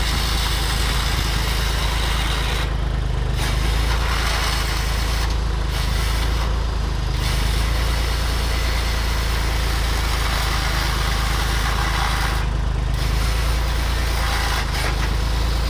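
Tractor engine running steadily, driving a homemade shaft-driven chainsaw log cutter; the saw chain's high hiss runs over the engine and drops away briefly several times as it cuts into the wood.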